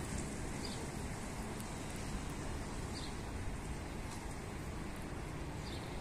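A bird gives three short, high chirps, a couple of seconds apart, over a steady outdoor background hiss.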